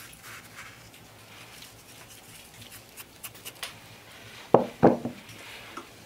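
Salt pinched and sprinkled from a small earthenware dish onto cauliflower in a pan, a faint rustle with a few light ticks, then two dull knocks about four and a half seconds in as dishes are handled on a wooden table.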